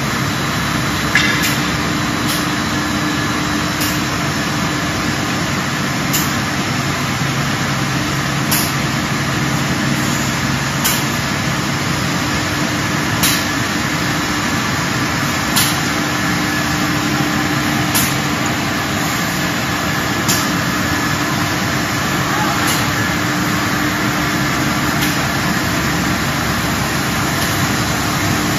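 Machinery of a UV roller coating line for wood veneer running: a steady whirring hiss with a low hum, and a sharp click about every two and a half seconds.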